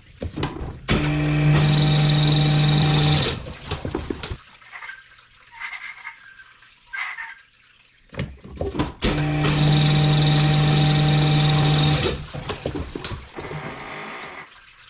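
Cylinder-honing machine running in two spells of about two seconds each, a steady hum with a high whine, as coarse stones rough in a cylinder bore. Between the spells there are clicks and knocks of the tooling and liquid running.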